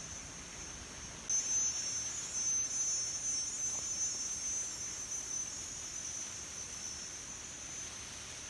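Insects droning in an orchard: a steady, high-pitched buzz that gets suddenly louder about a second in and then holds.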